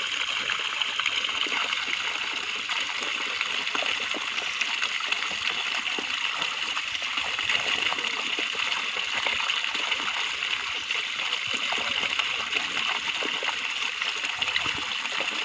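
Water draining down a channel cut in a mud bank and pouring into a woven bamboo basket fish trap set in a pit, a steady splashing trickle.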